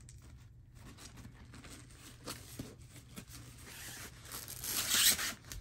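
Rustling and crinkling of a sheer organza bag as the rolled canvas inside it is opened and handled, building to a louder swish about five seconds in.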